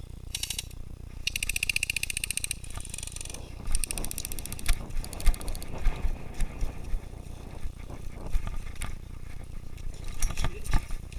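Airsoft electric rifle firing several short full-auto bursts in the first five seconds as suppressive fire, each a rapid, even ratcheting buzz from its gearbox. Scattered single knocks and clicks follow.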